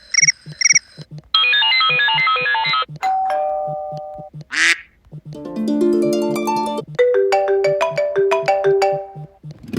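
iPhone classic ringtones previewed one after another through the phone's speaker, each cut off abruptly after a second or two as the next one starts. In order: a quick pulsing chirp, a rapid run of electronic notes, a two-note chime, a short rising sweep, and a descending arpeggio that runs into a repeating melody.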